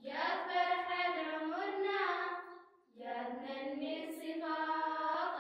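A female voice singing two long phrases of held, slowly gliding notes, with a brief break nearly three seconds in.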